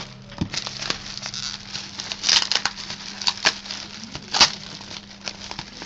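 Packaging being handled in the hands of someone unboxing: crinkling and rustling with many sharp little clicks, loudest a couple of times midway.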